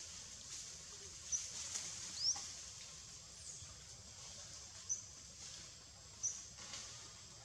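Outdoor tree-canopy ambience: five short, high-pitched chirps, about one every second or so, most sweeping upward and one falling, over a steady thin high whine.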